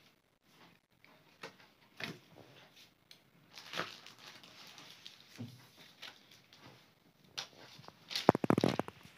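Cardboard gimbal box and its paper and plastic packing being handled during unboxing: scattered rustles and light knocks, then a sharp burst of crinkling near the end.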